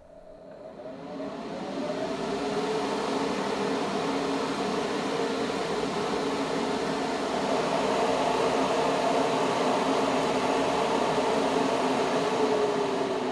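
Exhaust fans of an HS-E550BLK hobby spray booth switched on at maximum speed. They spin up over the first couple of seconds to a steady whir with a rush of air, then start to wind down, falling in pitch, near the end as they are switched off.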